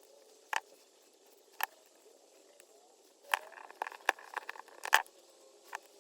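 Sharp small clicks and light rattling of a car wiper switch's parts being handled and pushed into place: a couple of single clicks, then a quicker run of clicks and rattles about halfway through, with one more near the end.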